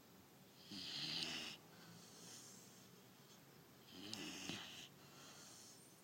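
Rottweiler puppy snoring in its sleep: two snores about three seconds apart, with softer breaths between them.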